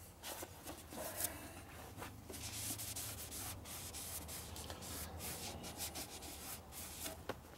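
Cloth rag rubbing and wiping around the cast-iron cylinder bore and deck of a Ford Model A flathead four-cylinder block, with a few light knocks mixed in.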